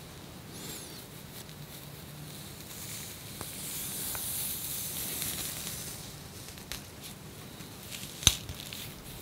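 Scratching at flaky, dandruff-covered skin around the ear and nape, a soft dry hiss that swells in the middle. A single sharp click comes near the end.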